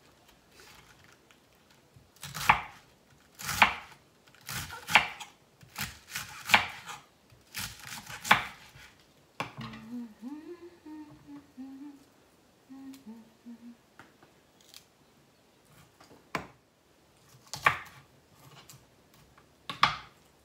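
Kitchen knife chopping through a head of cabbage onto a wooden cutting board: about seven sharp strokes at uneven intervals, then a few more near the end. In between, a woman briefly hums a short tune.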